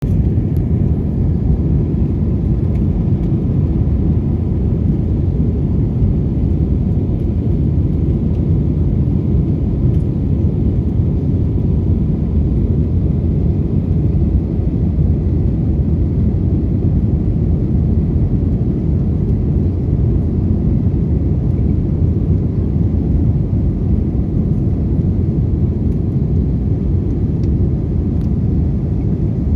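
Steady low rumbling noise with no clear rhythm or pitch.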